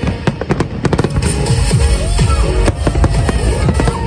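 Fireworks bursting in a quick run of sharp bangs in the first second or so, then more scattered bangs, over music.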